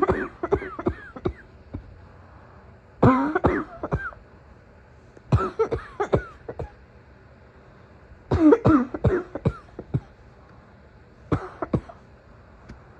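A sick woman's morning cough: five short coughing fits, one about every three seconds, each a cluster of several sharp coughs.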